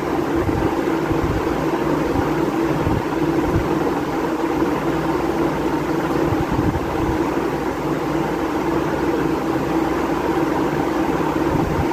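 Steady machine hum with a low steady tone, and a few soft low thumps.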